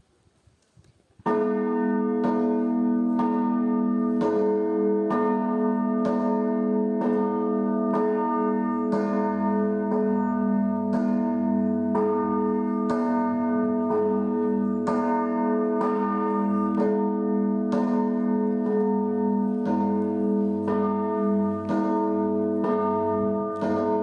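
Russian Orthodox church bells rung by a monk in the belfry of the Pskov-Pechersky Monastery, ringing to call the parishioners to the service. They start about a second in, with an even rhythm of strokes, roughly one a second, over the steady, long-ringing hum of the bells.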